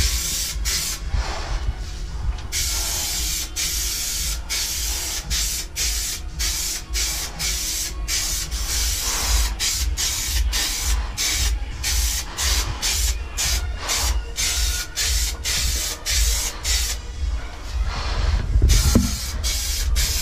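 Aerosol can of spray putty hissing in a long series of short bursts, with a steady low rumble underneath.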